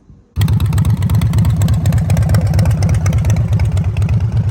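Motorcycle V-twin engine running loud with a rapid, pulsing exhaust beat, cutting in suddenly about half a second in.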